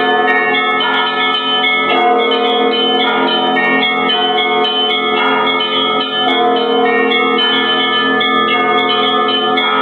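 Russian Orthodox church bells rung continuously, several bells struck in quick succession so that new strikes land every fraction of a second over the sustained hum of the larger bells.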